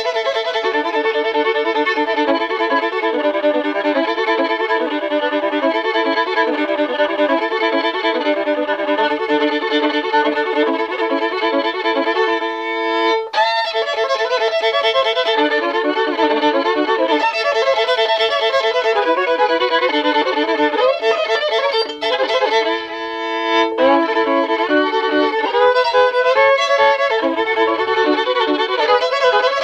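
Fiddle playing a fast, repetitive hillbilly-style tune, rapid note figures over a sustained drone note. The playing breaks off briefly about 13 seconds in and again near 22 seconds.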